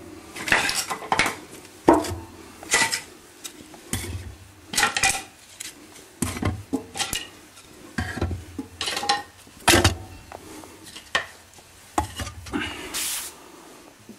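Split kindling sticks clattering and knocking against one another and the wood stove's metal firebox as they are laid in by hand: a string of irregular wooden knocks and rattles, with a brief hiss near the end.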